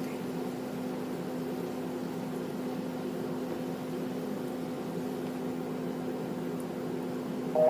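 Steady low electrical hum with one overtone above it over a constant hiss. Just at the end, the first keypad tone of a phone being dialled beeps in.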